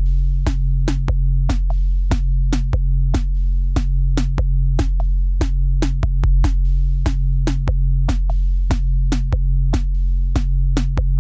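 Background electronic music: a steady low bass drone under a fast, clicking drum-machine beat.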